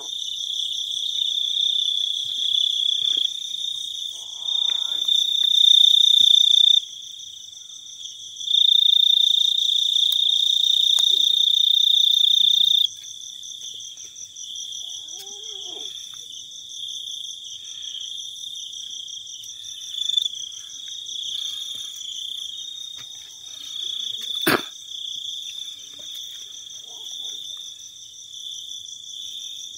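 Crickets chirring in a steady high trill, swelling louder twice in the first half. A single sharp click comes about two-thirds of the way through.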